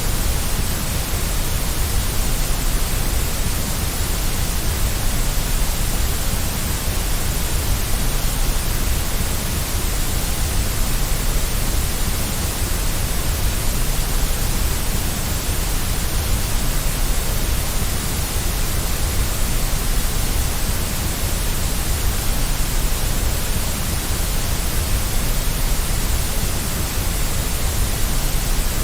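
Steady, unchanging white noise: an even hiss with a strong low rumble underneath, played as a baby-soothing sleep sound.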